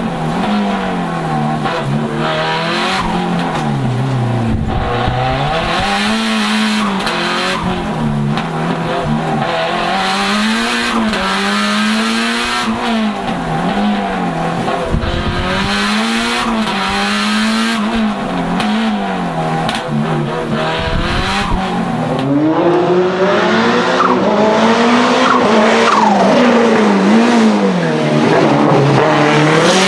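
Lancia Delta HF Integrale Evo 2's turbocharged four-cylinder engine under hard driving, its pitch climbing and dropping again and again as the driver accelerates, lifts and shifts through the slalom, with tyres squealing in places.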